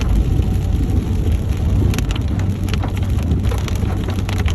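Rain striking a moving vehicle, with sharp drop hits scattered through, over the steady low rumble of the engine and road.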